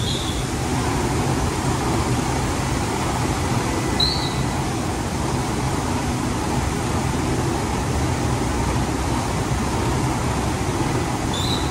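Emme Elle LBAS high-gloss polishing machine running, its polishing head travelling along the table with a steady mechanical hum and rush. Three short high chirps sound over it: at the start, about four seconds in and near the end.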